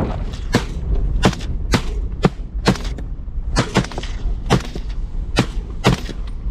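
Rapid rifle fire: about a dozen sharp shots in quick succession, irregularly spaced at roughly two a second, each with a short ringing tail.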